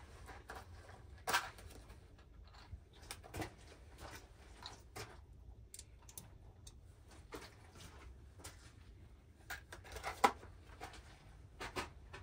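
Scattered light clicks and knocks over a low steady hum, the loudest about a second in and again near ten seconds.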